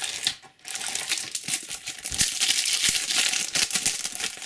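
Shiny foil wrapper of a Slam Attax Takeover trading card pack crinkling as it is torn open by hand, a dense crackle for about three seconds.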